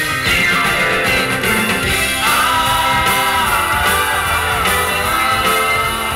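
Live band music with two men singing into microphones, one held vocal note starting about two seconds in.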